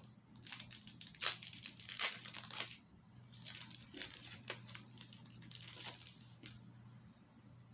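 Small clear plastic packaging bag crinkling as it is worked open by hand: a dense run of crackles for the first few seconds, then scattered crackles, dying away near the end.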